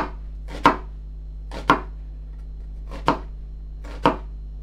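Kitchen knife cutting down through a halved onion onto a chopping board: five separate sharp knife strikes, roughly a second apart.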